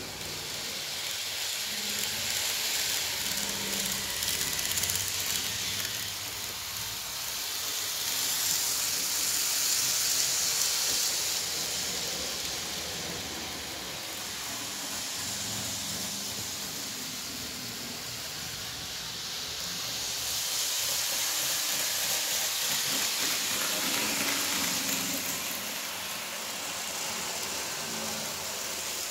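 Model train running on layout track: a steady hissing rumble of wheels and motor that swells and fades several times as the train comes nearer and moves away.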